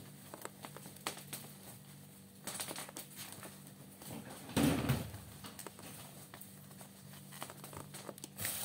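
Scattered light clicks and handling noises, with one louder dull thump about four and a half seconds in.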